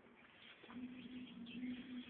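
Faint bird chirping, with a low steady hum that comes in about a second in.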